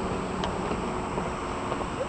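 Steady low rumble of vehicle traffic, with a faint tick about half a second in.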